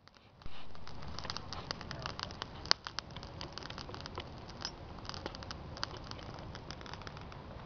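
Bonfire of twigs and branches crackling and popping: dense, irregular snaps starting about half a second in, with one sharp, loud pop a little under three seconds in, over a low rumble.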